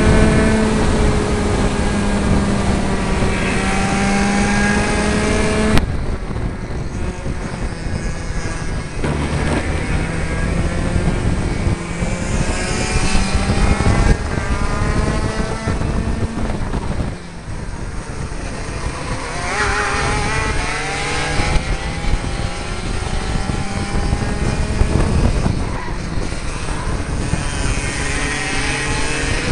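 60cc two-stroke Mini kart engines at racing speed, pitch climbing for several seconds on each straight and dropping back for the corners, again and again. From about halfway on, another kart's engine runs close alongside, its pitch climbing with the first.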